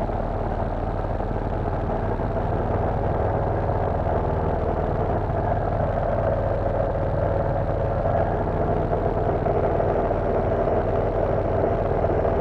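Cessna 172 floatplane's piston engine and propeller droning steadily in flight, heard from inside the cockpit.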